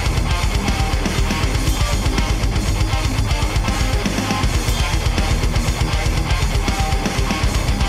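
Heavy rock music with electric guitar and drum kit playing a steady, driving beat.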